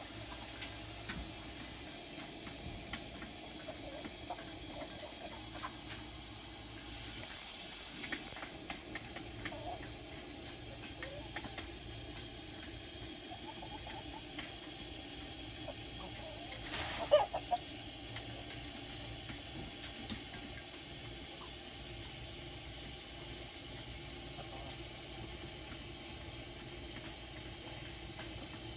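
Domestic chickens clucking softly and moving about in a coop, over a steady background hiss, with one louder sound about seventeen seconds in.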